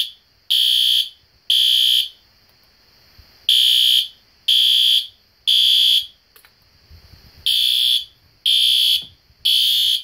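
System Sensor PC2W Spectralert Advance ceiling-mount horn strobe sounding the temporal-three fire evacuation pattern on its low volume setting: three half-second beeps, a pause of about a second and a half, then three more, repeating.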